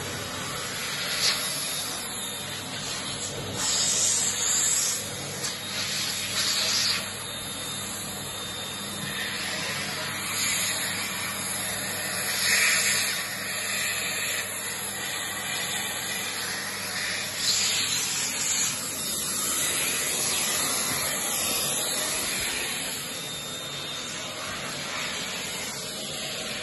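Vacuum cleaner running steadily as its nozzle is worked over a fabric sofa and the storage space beneath the seats, with brief louder surges every few seconds.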